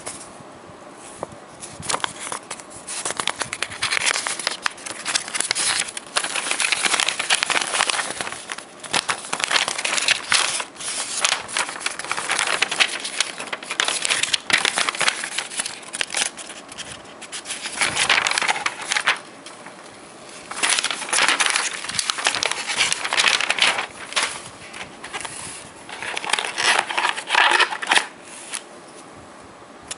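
Paper sheets and a printed booklet rustling and crinkling as they are handled and leafed through, in several bursts of a few seconds each with short quieter gaps between.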